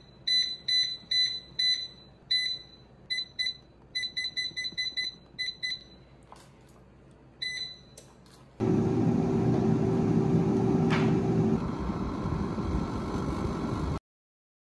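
COSORI Air Fryer Max touch panel beeping once with each button press: a string of short, high beeps over the first six seconds, with a quick run of them in the middle. About eight and a half seconds in, the air fryer's fan starts for the preheat and runs loudly and steadily with a low hum, until the sound cuts off near the end.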